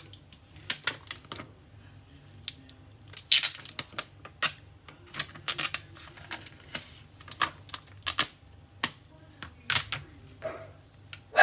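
Clear protective plastic film being peeled and crinkled off a folding phone by hand: irregular sharp clicks and crackles, with a louder rustle about three seconds in.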